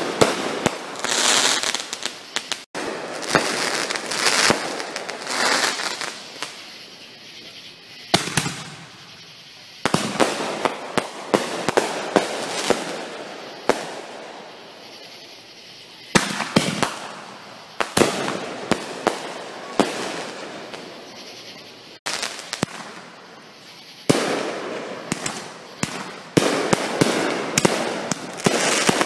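Aerial fireworks going off overhead: a sudden bang every few seconds, each followed by a spray of sharp crackles that fades away.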